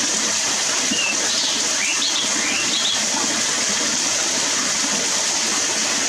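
Stream water rushing steadily over rocks, with a few short, high bird chirps between about one and three seconds in.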